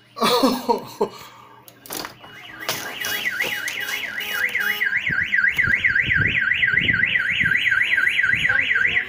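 A car alarm wailing, its tone sweeping up and down about four times a second, starting about two seconds in; it was set off by the collapsed construction crane lying across the parked cars. Before it, a loud burst with a falling pitch and a few knocks.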